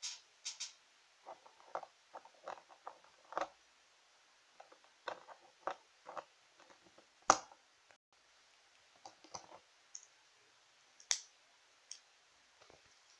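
Small plastic toy pieces clicking and tapping as a Kinder Joy Stegosaurus figure is handled and put together, its skeleton piece fitted into the grey plastic shell and pressed shut. Irregular light clicks throughout, with one sharper snap about seven seconds in.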